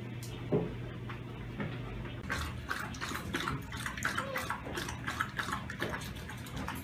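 Adult Greater Swiss Mountain Dog lapping water from a bowl, starting about two seconds in: a quick, wet, clicky run of laps.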